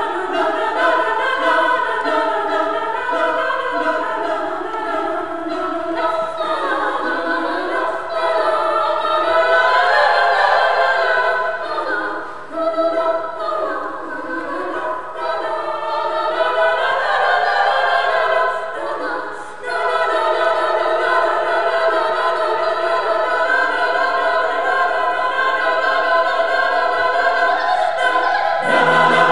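Mixed-voice a cappella choir singing in close harmony, a choral piece built on an Indian raga, with brief drops in level about twelve and nineteen seconds in.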